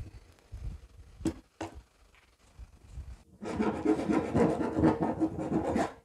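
Knife rasping and scraping through a blue plastic drum's lid as a centre hole is cut free. Two light clicks come first, then a dense scraping runs for about two and a half seconds in the second half.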